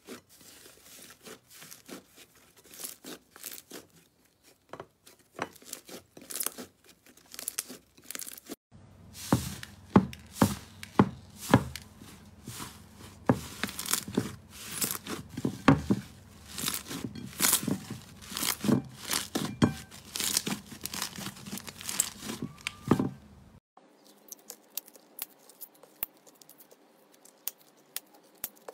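Hands stretching, squeezing and tearing thick slime in a glass bowl: a run of sticky crackles and sharp pops as it pulls apart, loudest in the long middle stretch. Near the end, fainter crinkling of small plastic zip bags filled with slime.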